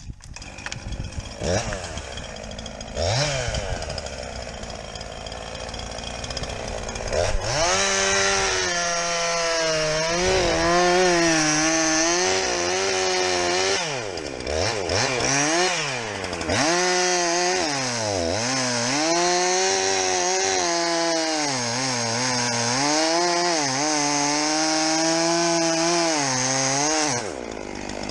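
Two-stroke chainsaw revving in short bursts, then running at full throttle through a cut for most of the time, its pitch dipping and recovering as the chain bogs in the wood. It shuts off suddenly near the end.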